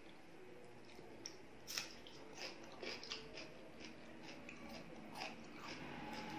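Close-up eating sounds of a person chewing, with wet mouth clicks and light crunches: one sharp click about two seconds in, then a run of smaller ones.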